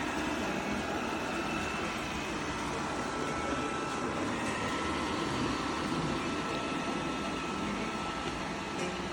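eufy Omni C20 robot vacuum running, a steady whir from its suction motor with a faint high whine.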